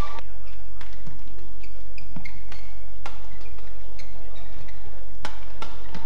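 Badminton rally: sharp clicks of rackets hitting the shuttlecock at irregular intervals, about a second or so apart, with a few short high squeaks in between.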